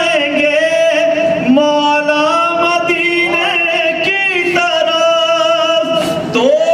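A solo man's voice singing Urdu religious verse in the sung style of poetry recitation, holding long drawn-out notes that bend and slide in pitch, with short breaks between phrases.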